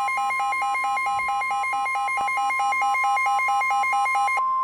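Emergency alert warning tone for a severe thunderstorm warning: a steady, high single tone with a rapid pulsing alarm beep layered over it. The pulsing stops suddenly near the end, leaving the steady tone alone.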